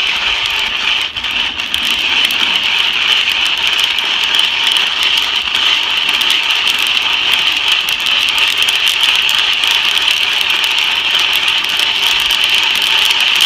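Coffee beans rattling and crackling inside a hand-cranked Whirley Pop stovetop popper as they are stirred late in the roast, a dense steady rattle of many small clicks over a constant hiss.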